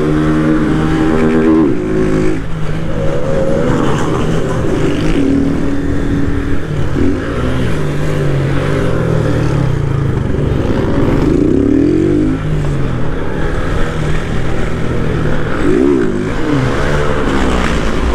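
Motorcycle engines running and revving, the pitch rising and falling again and again over a steady engine drone.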